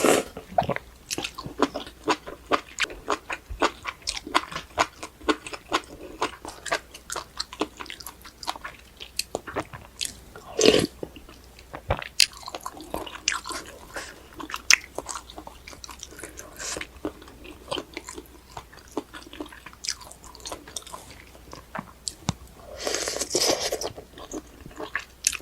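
Close-miked eating of a malatang and guobaorou meal: steady chewing with many small crisp crunches and clicks, a louder bite about eleven seconds in and a longer noisy stretch near the end.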